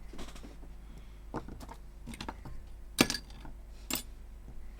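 Handling clicks and taps of small hard parts and tools on a repair bench, half a dozen light clicks with one sharper knock about three seconds in, as a phone is readied to power on.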